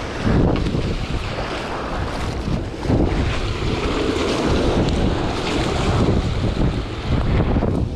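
Wind buffeting the microphone over a steady rush of fast-flowing water, a loud, even rushing noise with uneven low gusts.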